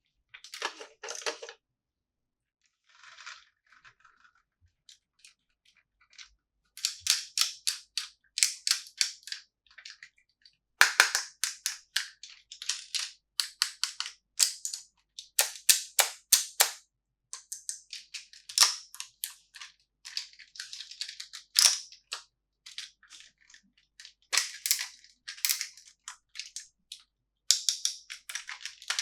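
Plastic toy packaging crinkling and crackling in runs of quick, sharp clicks, with short pauses between the runs.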